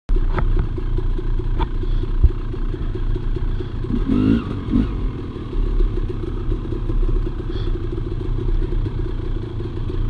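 KTM dirt bike engine running at low revs with a fast, steady chug while the bike crawls over a rocky trail. A few sharp knocks and clatter come through in the first couple of seconds, and a brief rise in revs about four seconds in.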